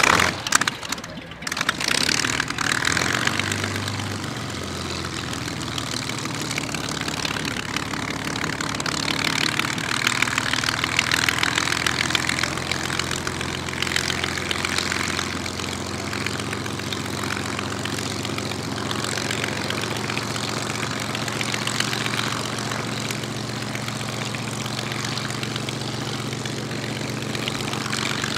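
Supermarine Spitfire's Rolls-Royce Merlin V12 engine starting: a few sharp bangs as it fires and catches in the first second or so, its note settling a few seconds in. It then idles steadily with the propeller turning.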